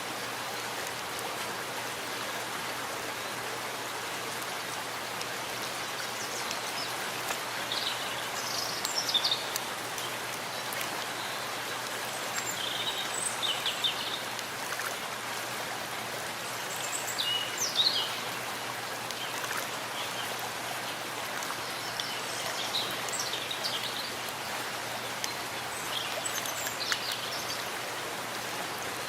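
Steady rain falling in a forest, an even hiss of drops with water splashing, while a few birds chirp in short clusters every few seconds.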